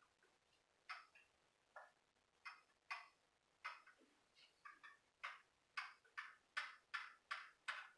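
Ratchet wrench clicking as a bolt is worked loose, faint sharp clicks that come irregularly at first and then steadily at about two or three a second in the second half.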